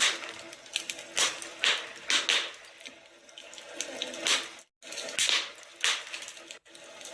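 Wood fire crackling in a fireplace, with irregular sharp pops over a steady hiss. The sound cuts out briefly twice in the second half.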